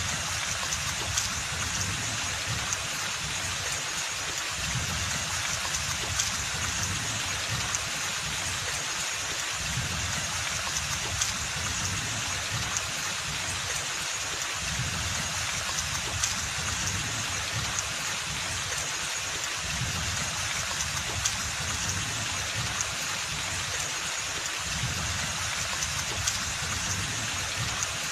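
Steady rain falling on forest foliage, a constant hiss of rain with scattered louder single drops every second or two.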